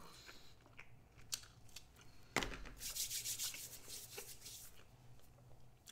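Handling noises close to the microphone, likely food packaging being handled: a small click, then a sharp knock a little under halfway through, followed by about a second of scratchy rubbing and rustling, and a few faint ticks.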